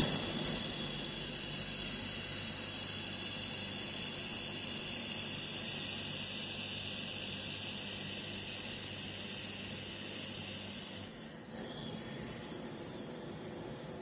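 1500 W Raycus handheld fiber laser welder running a weld along a stainless-steel T-joint: a steady high hiss with a faint whine and low hum that starts suddenly and cuts off about eleven seconds in.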